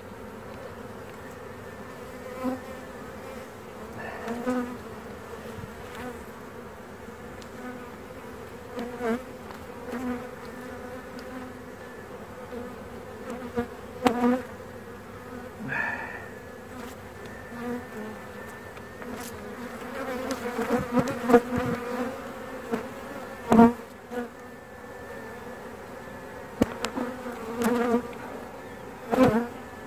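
Honeybee colony buzzing steadily in an open hive. Occasional knocks and scrapes come from the hive tool and wooden frames being worked, a cluster of them about two-thirds of the way through.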